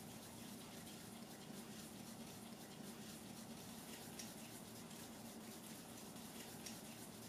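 Faint soft rubbing and light ticking of hands rounding balls of bread dough against a countertop, with a couple of slightly sharper taps about four and six and a half seconds in, over a steady low hum.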